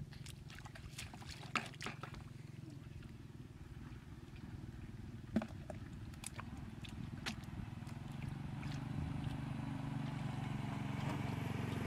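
Bare feet splashing and squelching through shallow muddy water, with scattered small splashes and clicks. Underneath is a steady low rumble that grows louder over the last few seconds.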